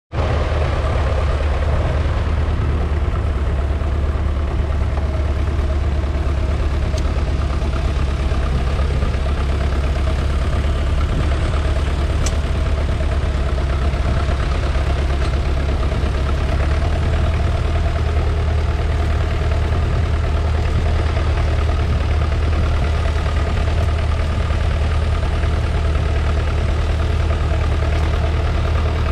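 1969 McCormick 434's 2.5-litre four-cylinder diesel tractor engine running steadily, its note changing slightly a little over halfway through.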